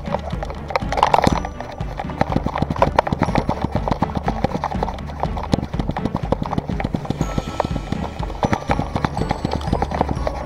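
Rapid, even patter and knocking of a small Staffie x Jack Russell terrier running on a tarmac path, picked up by an action camera strapped to the dog, over a low rumble of wind and camera movement.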